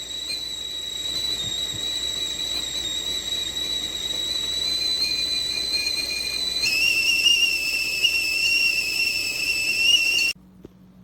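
Stainless steel stovetop whistling tea kettle (LONFFERY 2.5-quart) whistling at the boil, a steady high-pitched tone that shifts to a different pitch about seven seconds in, then cuts off suddenly near the end.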